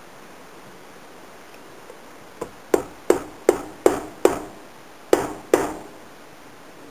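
Hammer tapping a part of a lockback folding-knife kit home: one light tap, then seven sharp metallic strikes, each with a short ringing ping, with a brief pause before the last two.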